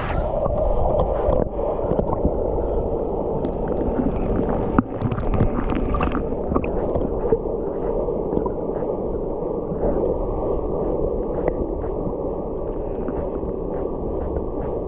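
Steady rush of the Little Mashel River waterfall pouring into its plunge pool, heard muffled with little high end and a few faint ticks of splashing.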